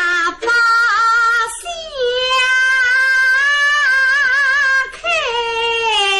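A woman singing a slow Suzhou tanci (pingtan) melody, drawing out long notes with a wavering vibrato. She slides down to a new note about two seconds in and to a lower one about five seconds in.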